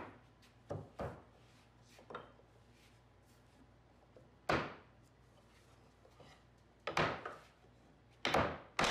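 Sharp wooden knocks and taps, about eight in all and spaced irregularly, as tight-fitting dadoed plywood grid pieces of a torsion box are knocked into place during a dry fit. The loudest knock comes about halfway through, with a small cluster near the end.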